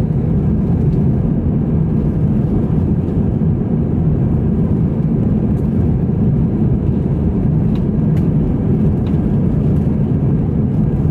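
Cabin noise of a British Airways Airbus A321-200 climbing shortly after takeoff: the steady, low rumble of the jet engines and rushing airflow, heard from a window seat over the wing.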